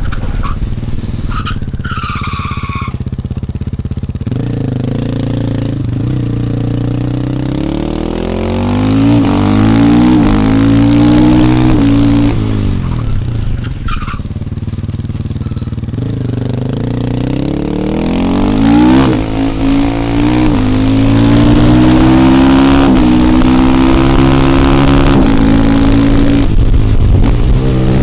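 KTM 450 EXC supermoto's single-cylinder four-stroke engine under way. The revs climb and drop through the gears, then hold steady. There is a short high squeal about two seconds in.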